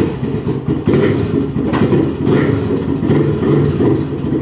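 Honda ATC200X three-wheeler's two-stroke single-cylinder engine catching suddenly on the first kick from a cold start and running on, uneven and loud with a few brief surges.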